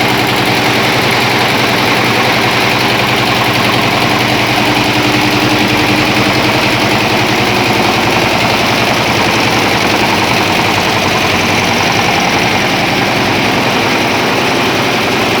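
Freshly overhauled engine idling steadily with an even, regular beat, running smoothly.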